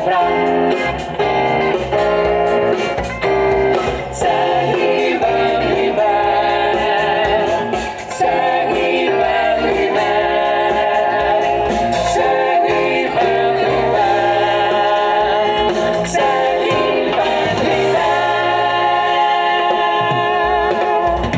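Live jazz band with brass and drums playing, with a group of male and female singers singing together.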